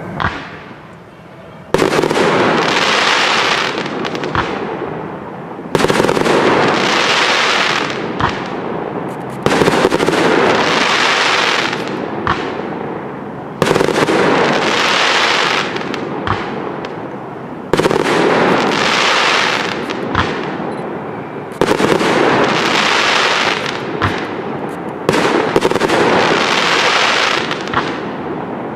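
Aerial firework shells bursting about every four seconds. Each sudden loud report is followed by a few seconds of dense crackle and hiss that slowly fades, with an occasional single sharp bang in between.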